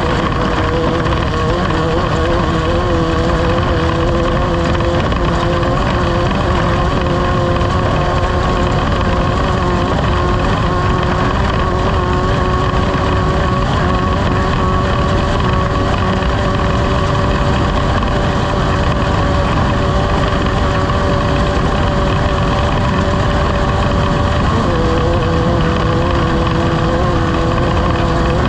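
Off-road race vehicle's engine running at a nearly constant speed, loud, over a dense low rumble. Its pitch shifts slightly about 24 seconds in.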